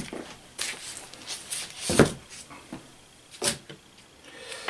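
Comic books in plastic bags being handled: bag rustling and a few short knocks, the loudest about two seconds in and another about a second and a half later.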